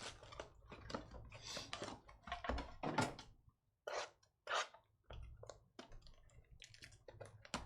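Irregular crinkling, clicking and scraping of a sealed Topps Finest trading-card box and its wrappers being opened by hand, in short uneven bursts with brief pauses between.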